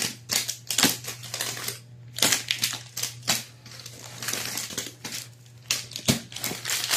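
Plastic-wrapped soap packets, cardboard and bubble wrap rustling and crinkling as they are handled in a box, in uneven spells, over a low steady hum.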